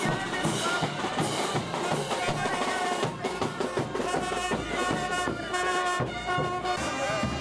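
Marching Andean brass band playing diablada music. Trumpets, trombones and baritone horns play held notes over a steady beat of cymbal crashes, snare drums and bass drums.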